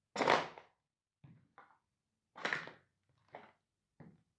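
Sneaker stomps crushing a cardboard Big Mac box against the floor: one loud crunch just after the start as the box gives way, a second strong stomp about halfway, and several lighter stomps and crinkles as it is flattened.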